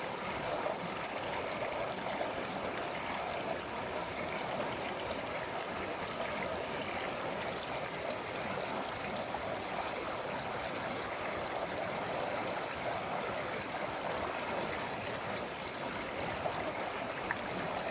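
Mountain river flowing over rocks: a steady rushing and gurgling of water.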